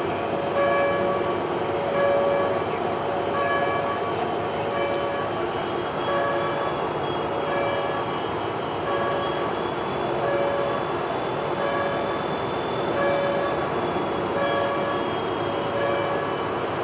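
Stalled Pacific Surfliner train standing with its locomotive running, a steady rumble. Over it a short pitched tone repeats about every one and a half seconds. A single click comes near the end.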